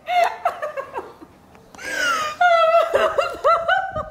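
Young women laughing, short bursts at first, then louder, fuller laughter from about two seconds in.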